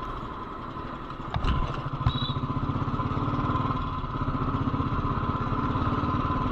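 Royal Enfield Lightning 535's single-cylinder engine running with an even, pulsing beat. About a second and a half in it gets louder, with two sharp knocks, then settles back into steady running.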